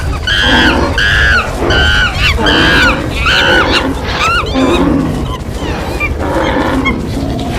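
Animal stampede sound effect: a jumble of animal calls over a steady low rumble. About five loud honking calls come in quick succession in the first few seconds, followed by shorter rising and falling cries and lower calls.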